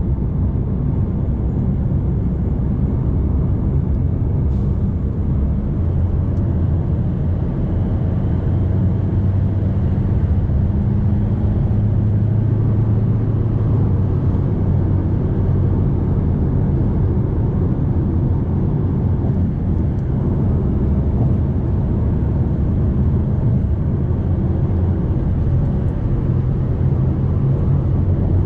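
Steady drone inside the cab of a Fiat Toro Volcano 4x4 cruising on the highway: the 2.0 turbodiesel four-cylinder running under light load, mixed with road noise. It swells slightly about ten seconds in.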